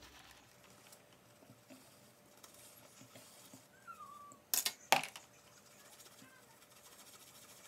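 Soft wet rubbing and small clicks of a makeup brush worked over a ridged, finger-worn brush-cleaning pad, with a faint short squeak about three seconds in. A little past the middle come two sharp knocks about half a second apart.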